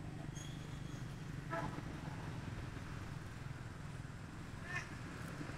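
A few short animal calls: a brief high note near the start, then two short harsh calls about a second and a half in and near the end, over a steady low hum.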